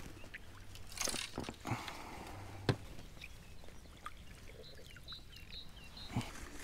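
Water splashing around a wooden landing net dipped into and lifted out of a river, with a sharp knock near the middle. A small bird chirps several times in the second half.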